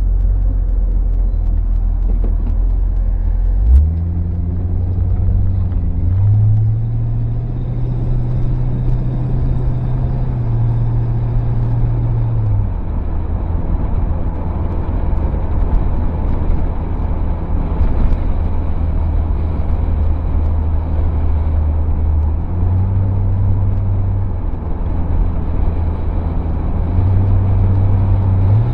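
1968 Ford Torino GT's V8 engine and road noise heard from inside the cabin while driving. The engine note steps up a few seconds in, drops back about halfway through, and climbs again near the end as the car speeds up and eases off.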